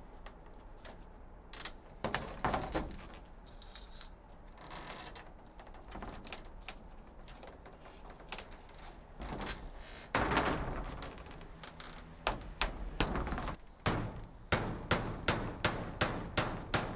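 Scattered clicks and short scraping rustles from a hand punch worked into corrugated polycarbonate sheet, then hammer strikes on a roofing nail going into the sheet, settling in the last few seconds into a steady two or three sharp blows a second.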